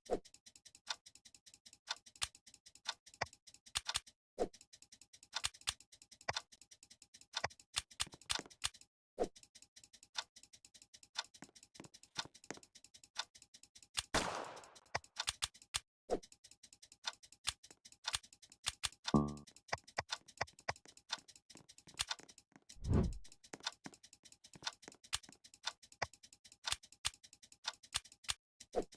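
Sharp, irregular clicks, some in quick runs, with a dull thud about 23 seconds in.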